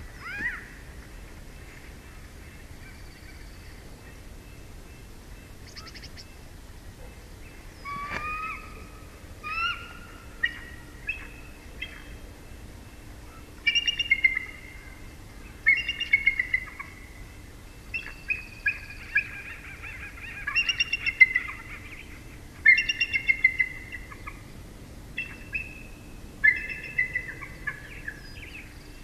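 Bald eagles calling in short runs of rapid, high, chittering notes, starting about eight seconds in and recurring every second or two.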